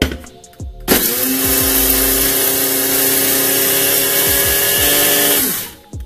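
Small electric coffee grinder grinding coffee beans. It starts suddenly about a second in and runs steadily with a motor whine over the rattle of the grinding for about four and a half seconds, then winds down.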